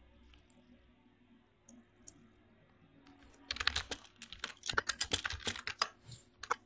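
Typing on a computer keyboard: a quick run of keystrokes starts about halfway through and lasts a couple of seconds, followed by one more keystroke near the end.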